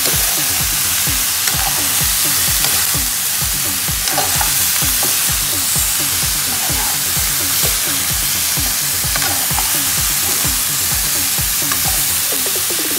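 Chicken feet sizzling in hot oil in a frying pan as they are stirred with a spoon, a steady frying hiss. A steady low beat, about three pulses a second, runs underneath.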